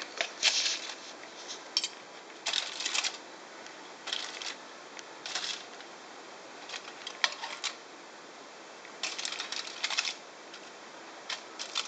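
Spoon and fork working a herb topping over fish in aluminium foil: crinkling foil and clicking metal cutlery in short bursts, about seven groups spaced a second or two apart.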